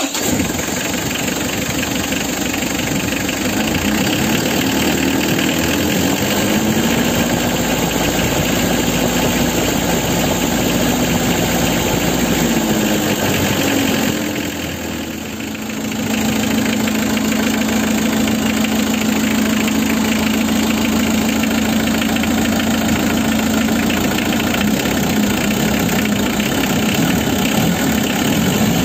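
Mitsubishi L300's four-cylinder diesel engine, heard close up through the open engine bay, idling just after being started. Its speed wavers at first, sags briefly about halfway, then settles into a steady idle and picks up a little near the end.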